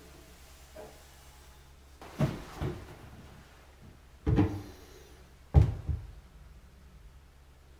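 Drop-in bathroom sink being lowered into its countertop cutout and set in place: four short knocks and clunks, the last the loudest.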